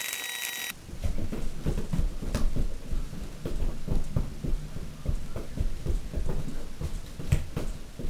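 Irregular dull thuds of feet stomping and jumping on a floor during energetic dancing, several a second. Under a second in, a steady hum with high whining tones cuts off abruptly.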